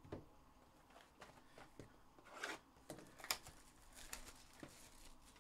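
Faint handling of trading-card packaging: a few soft crinkles of plastic wrapper and light clicks and taps, the sharpest about three seconds in.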